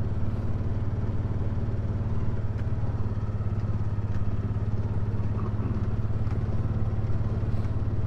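Small vehicle engine running at a steady speed while being driven, a constant low hum with no change in pitch.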